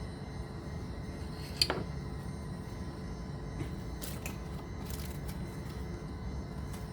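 A single sharp metallic click with a brief ring about one and a half seconds in, then a few faint ticks, over a steady low hum: small metal parts or tools being handled during brake work.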